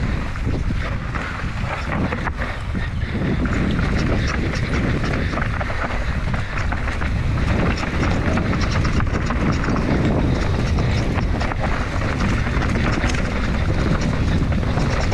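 Enduro mountain bike ridden fast down a dirt trail: wind buffeting the microphone over the rush of knobby tyres, with many small rattles and knocks from the bike over rough ground.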